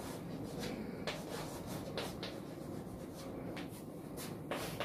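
Chalk writing on a chalkboard: a series of short strokes as an arrow and letters are drawn.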